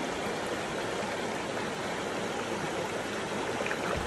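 Shallow stream water flowing steadily over a stony bed, an even, continuous wash of moving water.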